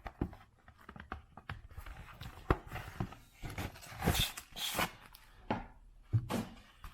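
Rustling, scraping and light clicks of paper and card packaging being handled as a mailer is opened and its contents pulled out.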